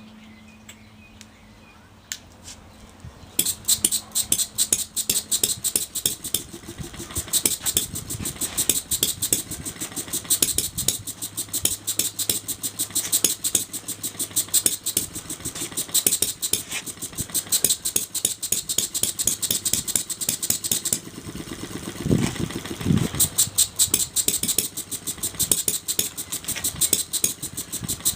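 Jonas vertical four-stroke model engine starting about three seconds in, then running with a fast string of sharp exhaust pops. A little past the middle the running dips briefly, with a low sound rising and falling, before the pops pick up again.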